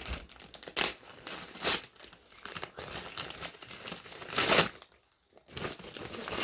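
Wrapping paper being torn and crumpled as a present is unwrapped, in irregular rips and rustles. There are louder tears about a second in, near two seconds and around four and a half seconds.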